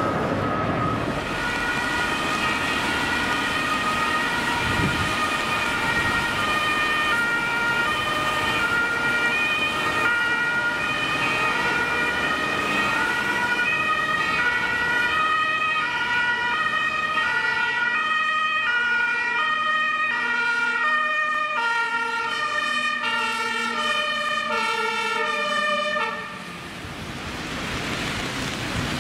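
German two-tone emergency sirens (Martinshorn) on fire department vehicles. Several sound at once and out of step with one another as the apparatus respond. Near the end the sirens cut off suddenly, leaving traffic noise on a wet road.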